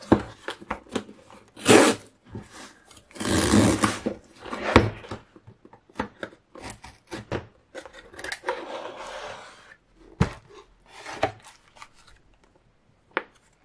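A cardboard mailer box being handled and cut open with scissors: a run of irregular scrapes, rubs and sharp clicks, with a longer, louder scraping stretch about three seconds in.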